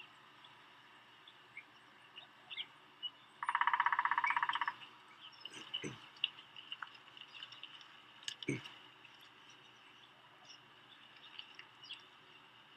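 Outdoor ambience with small birds chirping now and then. About three and a half seconds in, a loud rapid buzzing trill lasts just over a second. Two short low thuds follow later.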